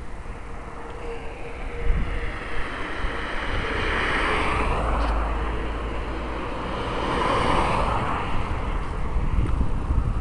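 Vehicles passing on a road, two going by about four and about seven seconds in, each swelling and fading, with wind rumbling on the microphone.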